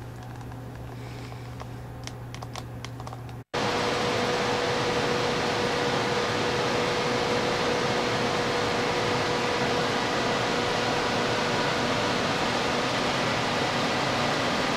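Low steady hum with a few light clicks in a small rail-car washroom, then after a cut a louder, steady rush of air-handling fan noise inside a passenger rail car, with a faint steady whine in it.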